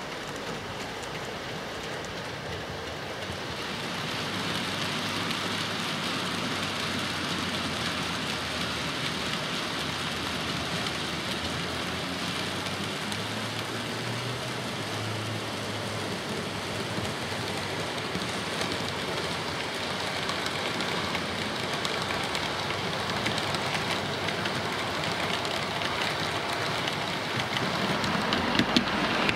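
OO-scale model trains running on the layout track: a steady rushing of wheels on rail with motor noise, getting louder about three seconds in and holding, with sharper clicking near the end.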